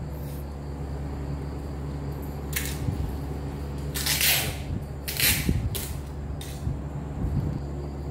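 Objects being handled: several short rustles, about two and a half to six and a half seconds in, with a few light clicks, over a steady low hum.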